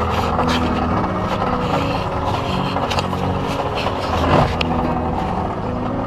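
Mercury outboard motor on a small boat running steadily under load while towing a larger boat, with a wash of water and wind noise and a brief swell about four seconds in.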